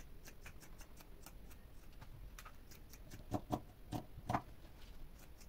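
Fabric scissors cutting knit fabric: a run of faint blade snips, with a few louder snips between about three and four and a half seconds in.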